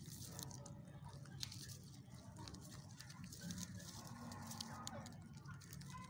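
Domestic rabbits nibbling feed among dry straw: faint, irregular crisp clicks and rustles.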